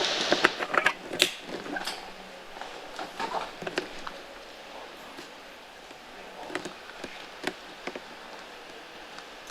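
Scattered sharp clicks and ticks over a faint background. Several come close together in the first two seconds, then single ones every second or so.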